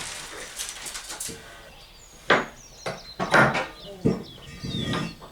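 A handful of sharp knocks and clatters from objects being moved and handled, coming in the second half, with faint high chirps among them.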